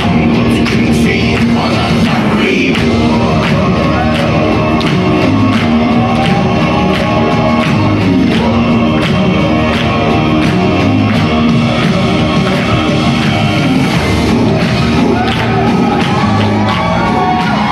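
Recorded Mongolian folk-metal music playing: deep male voices chanting in unison over a steady drum beat of about two strikes a second.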